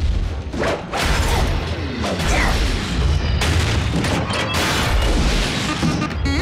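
Sound effects of a fight between giant robots in an animated series: a fast run of heavy metallic impacts and booms over a low rumble, with a music score underneath.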